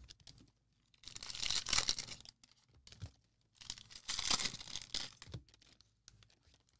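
Cellophane wrapper of a Prizm football cello pack being torn open and crinkled: two main bursts of crackly rustling, about a second in and about four seconds in.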